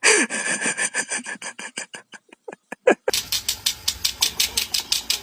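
Comedy laughing sound effects: a rapid, stuttering laugh of quick short pulses that breaks off about three seconds in, then a breathy laugh of quick even pulses, about seven a second.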